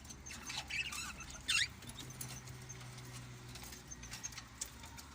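Small caged birds chirping: a few short, high calls, the loudest a quick downward-sweeping chirp about one and a half seconds in.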